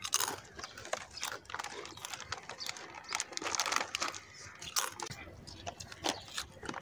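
Crunchy potato chips and cheese puffs being bitten and chewed, with crinkling of foil snack packets. The sound is a run of short, irregular crackles and crunches.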